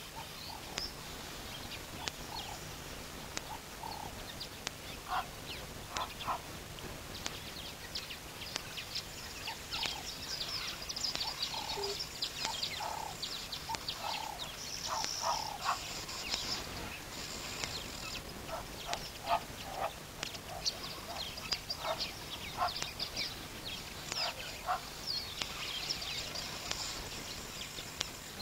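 Many small birds chirping and calling together, with dense runs of short high chirps and scattered lower calls.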